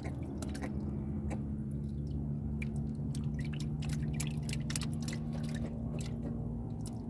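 Irregular small wet clicks and squishes of hands working a freshly caught fish and its hook, over a steady low hum.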